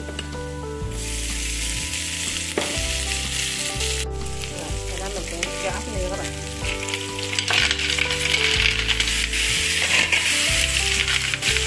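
Minced garlic sizzling in hot oil in a frying pan. From a little past halfway, the frying grows louder and busier, with the clicking of spotted babylon snail shells in the hot pan.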